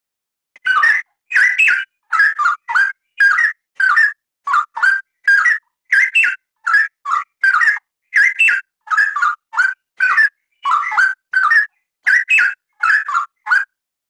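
Straw-headed bulbul singing: a rapid, nearly unbroken string of short warbled phrases, about two to three a second, starting about half a second in and stopping just before the end.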